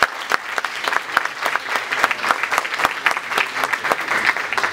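Audience applauding: many people clapping, a dense patter of claps that begins to thin out near the end.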